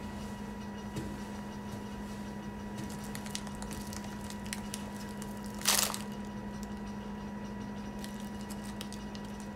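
A steady low electrical hum with faint crackles, broken by one short loud noisy burst a little before six seconds in.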